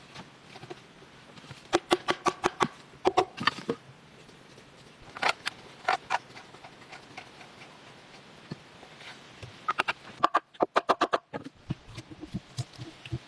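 Quick runs of sharp taps and clicks, several a second, coming in four short bursts, the last and longest about ten seconds in, typical of small tools working on wood.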